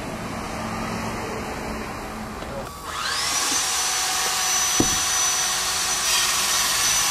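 A high-speed electric power-tool motor: a lower steady hum, then about three seconds in a whine that rises quickly in pitch and settles into a steady high whine over a loud rushing noise. A single knock comes near five seconds.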